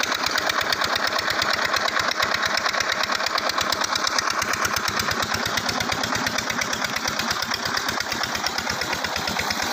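Single-cylinder 'Peter' diesel engine running a tubewell pump, a steady, rapid, even thudding beat, with water gushing from the delivery pipe into a concrete tank.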